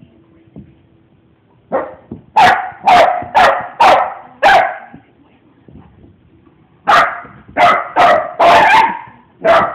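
A dog barking in two runs: about six quick barks, a pause of two seconds, then five more, one of them drawn out longer.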